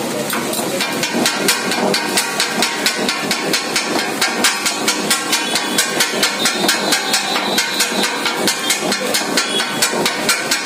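Two steel blades striking a flat griddle as kothu parotta is chopped on it: a fast, even metallic clatter of about five strikes a second.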